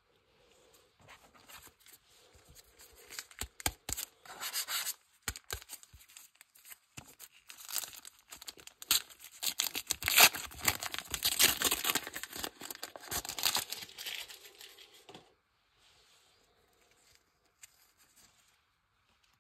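Foil trading-card booster pack (Panini Adrenalyn XL Premier League) being torn open and crinkled by hand: a run of crackling tears and rustles, loudest about ten to fourteen seconds in, that stops about fifteen seconds in.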